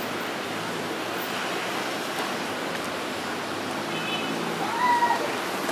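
Steady outdoor rushing noise, like distant city traffic, with a short gliding whistle-like tone about five seconds in.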